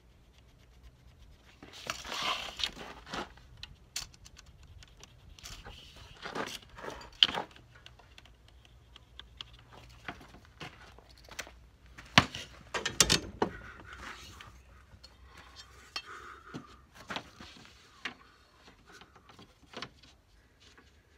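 Scattered taps, knocks and short scrapes of hand tools handled on a plywood sheet: a tape measure, pencil and straightedge picked up and set down on the board. The sharpest knocks come about seven seconds in and again around twelve to thirteen seconds in.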